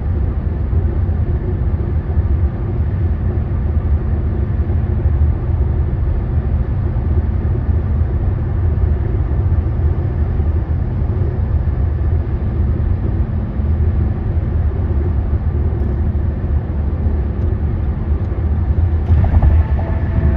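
Steady low tyre and road rumble heard inside a car cruising at highway speed. About a second before the end, a humming whine of several steady higher tones joins in as the tyres run onto a bridge deck.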